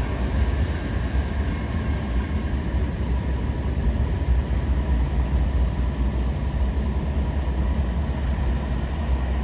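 Union Pacific freight train rolling past at close range: a steady, heavy low rumble with no horn.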